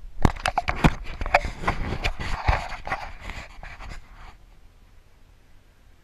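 Handling noise of a GoPro camera being picked up and turned by hand: a run of knocks, clicks and rubbing against its housing, with a few short squeaks. It stops about four seconds in, leaving a faint hiss.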